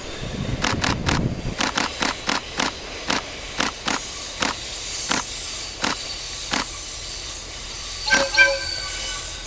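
KiHa diesel railcar's wheels clacking over rail joints, the clacks coming about four a second at first and then further and further apart. A short train horn blast about eight seconds in is the loudest sound.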